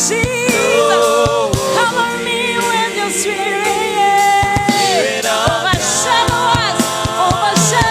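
Gospel worship music: a choir sings long held notes over the band, with a few low drum hits.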